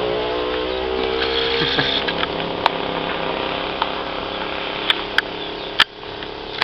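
A motor running with a steady hum that drops away about two seconds in, followed by a noisier stretch with several sharp clicks.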